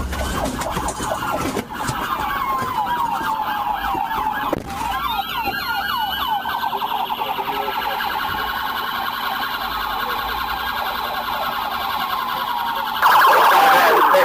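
Police car siren wailing in rising and falling sweeps, then switching about five seconds in to a fast yelp that runs on. Near the end a louder sound breaks in over it.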